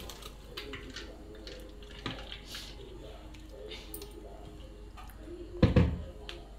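Hands squeezing wet grated coconut to press out the thick first coconut milk: soft squishing and dripping with small clicks of the bowl. A single loud thump comes about five and a half seconds in.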